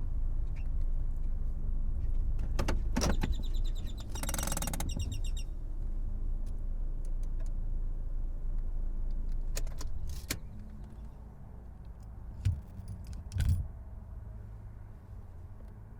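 Car on the move, a steady low engine and road rumble that gets quieter about ten seconds in. A cluster of clicks and a short buzzy tone come around three to five seconds in, and two low thumps near the end.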